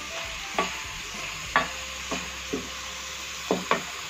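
Wooden spoon stirring a thick curry masala in an aluminium pot, knocking and scraping against the pot about six times, over a steady sizzle. This is the final bhuna stage, with the ghee separated from the masala.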